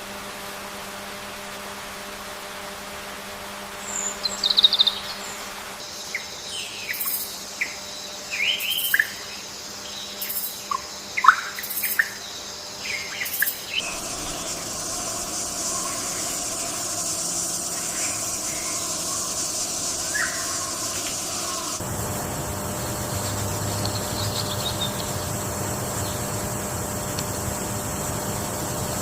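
Forest birds and insects: a run of short chirping bird calls in the first half, then a steady high-pitched insect chorus. The background changes suddenly a few times.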